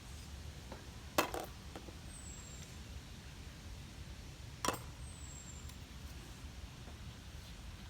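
Two sharp clicks of tic-tac-toe pieces being set down on the board, about three and a half seconds apart, the first the louder.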